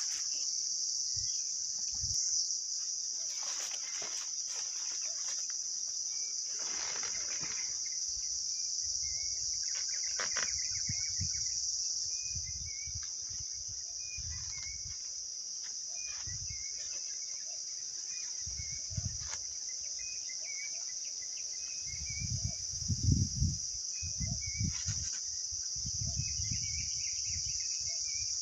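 A steady, high-pitched chorus of night insects, with scattered short chirps over it. Low dull thumps come and go, mostly in the second half, the loudest a little past the two-thirds mark.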